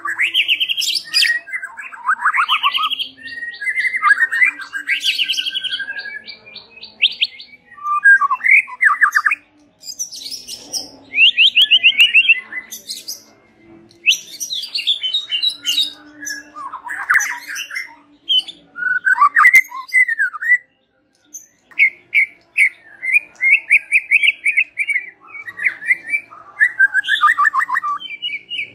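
White-rumped shama (murai batu) singing a loud, varied song of rapid trills, sweeping whistled phrases and sharp clicky notes, with short breaks and one longer pause about two-thirds of the way through.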